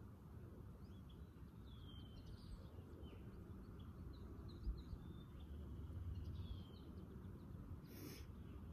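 Faint birds chirping and whistling here and there over a low, steady outdoor rumble, with a short burst of noise near the end.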